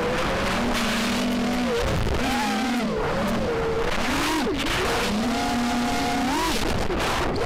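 A first-person-view drone's electric motors whine, their pitch rising and falling again and again as the throttle changes. Steady wind and propeller noise on the onboard camera's microphone runs under them.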